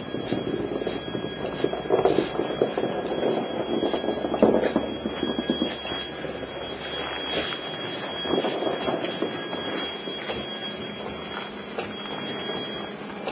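EV2 electric Jeep creeping through snow: a steady high whine over rumbling, crunching noise that swells a few times, with a few sharp knocks.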